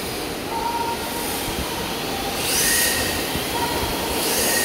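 Radio-controlled drift cars running on a smooth indoor track, their electric motors whining and their tyres hissing as they slide. A steady whine comes and goes, and the hiss swells twice, about halfway through and near the end.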